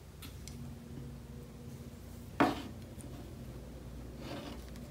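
Quiet handling of a wooden embroidery hoop being turned on a wooden table, with faint clicks and one sharp knock about halfway through, over a steady low hum.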